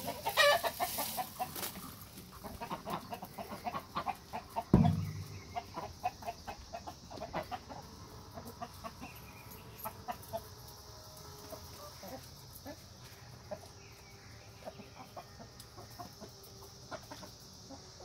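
Backyard chickens clucking softly while they peck at cicadas on bare dirt, with many small sharp pecking clicks. A single louder thump comes about five seconds in.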